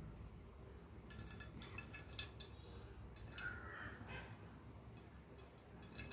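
Sesame oil poured from a plastic sachet into a kadai: a faint trickle with a few soft clicks, mostly about a second in and again near the end.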